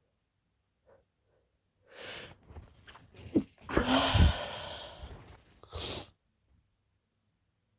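A woman sneezing in a sneezing fit: a couple of seconds of quick, breathy inhales build up to one loud sneeze that trails off in an exhale, and a shorter breathy burst follows about a second and a half later.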